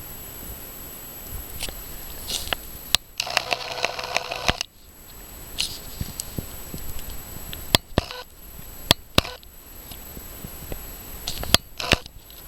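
Wood fire crackling, with scattered sharp pops and snaps. Between about three and four and a half seconds in, a steady pitched tone with overtones sounds for about a second and a half, then cuts off.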